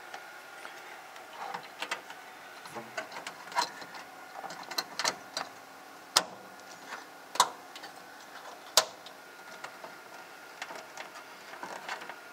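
Irregular clicks and taps of coax cables with metal F-connectors being handled and a Leviton coax splitter being fitted on a perforated metal enclosure panel, with three sharper clicks around the middle.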